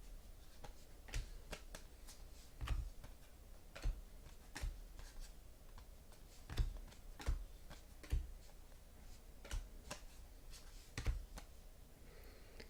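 Trading cards being handled and set down on a table: irregular sharp clicks and taps, some with a soft thump, about one or two a second.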